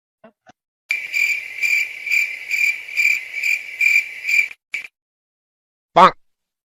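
Cricket-like chirping: a high, pulsing tone about twice a second for three or four seconds. A short, loud sound follows near the end.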